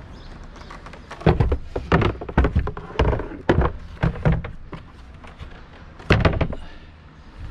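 Inflatable boat floorboards knocking against each other and the car's boot floor as they are slid in and laid down. A quick run of knocks starts about a second in, and one heavy thud comes near the end.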